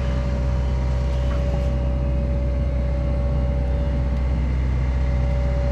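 John Deere 85G excavator's diesel engine running steadily under load, with a steady whine above it, as the machine works a large tree stump out of the ground.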